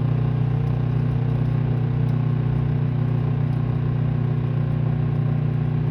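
Microwave oven running mid-cycle with a steady electrical hum.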